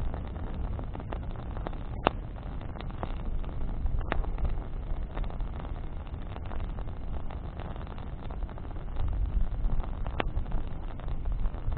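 Campfire of branches burning: a steady low rumble with scattered crackles, and sharp pops about two, four and ten seconds in.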